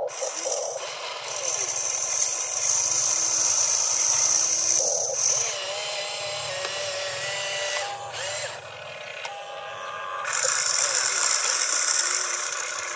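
Radio-controlled toy excavator's electric motors whining as the arm digs dirt and the upper body swings round to the dump truck. The high whine comes in two spells of a few seconds, with shifting motor tones in between.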